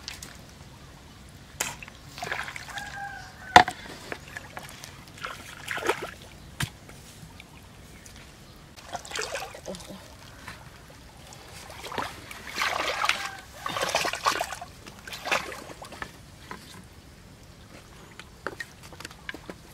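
Bamboo poles being handled and lashed together with rope: scattered knocks and clicks of bamboo, with one sharp knock a few seconds in, and spells of rustling and scraping.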